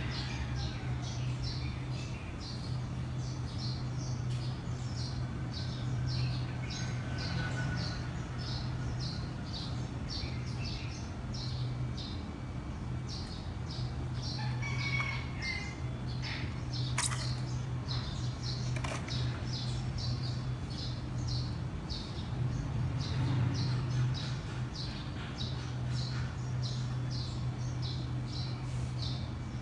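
A small bird chirping over and over, two or three short high chirps a second, over a steady low hum. Two sharp clicks come about two seconds apart past the middle.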